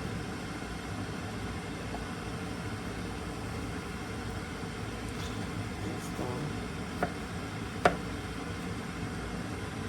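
Steady low background hum, with two sharp knocks just under a second apart about seven seconds in.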